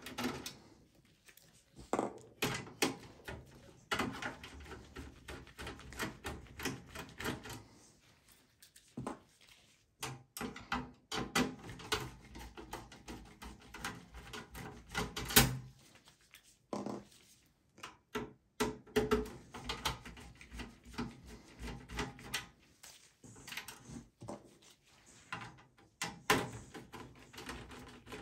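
Hand screwdriver backing out the motherboard screws from a steel desktop PC chassis. Irregular clicks, taps and knocks come from the tool on the screw heads and from handling the metal case, with short pauses between screws.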